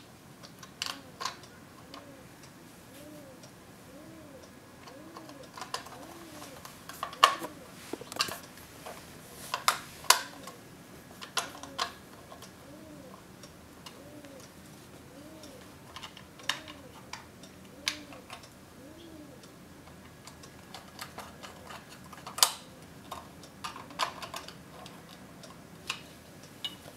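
Screwdriver tightening the small screws of a plastic cuckoo-clock window frame: scattered clicks and taps of metal on plastic. Under them, a faint tone rises and falls in a steady rhythm through most of it.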